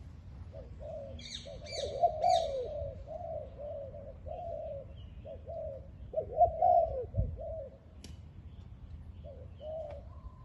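Spotted dove cooing: a long series of short, rising-and-falling coos, with a brief burst of higher chirping from a smaller bird about one and a half seconds in.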